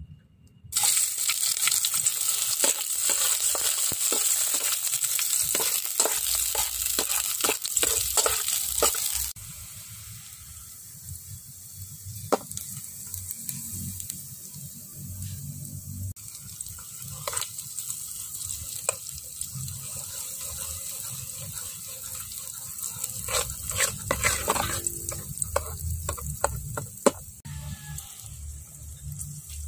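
Chopped ingredients hit hot oil in an aluminium pot and sizzle loudly. After about nine seconds the frying settles to a quieter sizzle, with scattered clicks of a metal ladle stirring and scraping in the pot.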